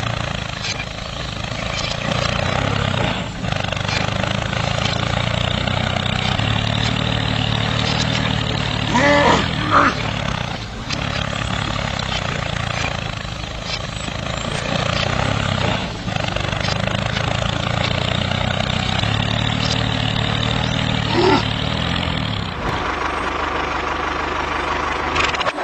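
Tractor diesel engine running steadily with a low chugging note, with a brief higher-pitched sound about nine seconds in and a change in tone near the end.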